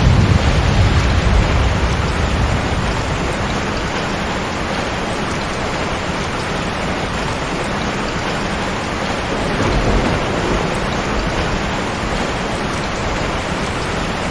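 Heavy rain pouring steadily, with a rumble of thunder at the start that fades over a couple of seconds and a fainter rumble about ten seconds in.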